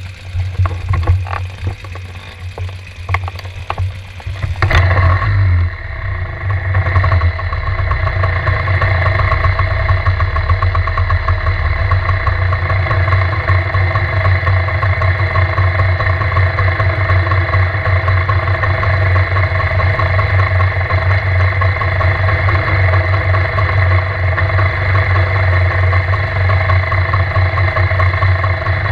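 Classic pre-1965 trials motorcycle engine idling, heard through a camera mounted on the bike. It is uneven, with clicks and knocks, for the first few seconds, then settles into a steady idle about five seconds in.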